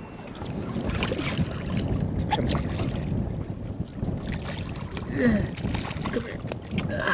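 Hooked redfish splashing at the water's surface beside the boat, with steady wind noise on the microphone.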